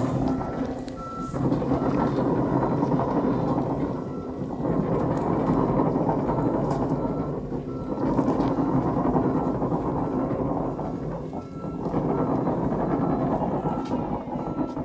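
Alstom metro train rolling slowly along the track, a dense steady rumble that swells and dips. A short high warning beep repeats at intervals over it.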